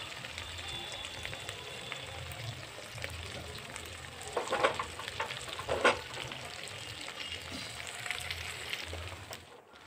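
Small whole fish frying in hot oil in a kadhai, a steady sizzle. Two louder scraping sounds come about four and a half and six seconds in as the pan is swirled on the stove.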